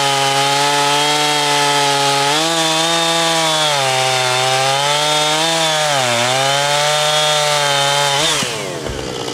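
Husqvarna 455 Rancher two-stroke chainsaw at full throttle, cutting through a maple log, its pitch sagging a few times as the chain bogs in the wood. About eight seconds in the throttle is released and the engine winds down fast.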